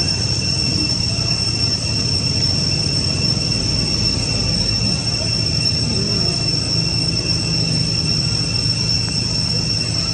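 Steady high-pitched insect drone in the forest, two unbroken shrill tones that hold level throughout, over a low steady rumble.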